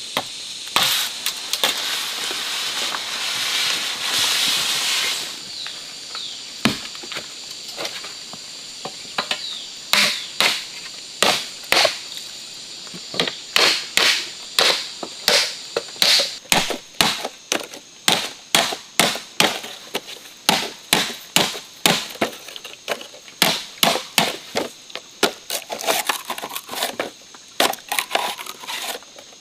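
Machete blade striking green bamboo laid on a wooden stump, splitting it into strips with sharp blows about twice a second. At the start there are several seconds of dry bamboo leaves and stalks rustling and crackling.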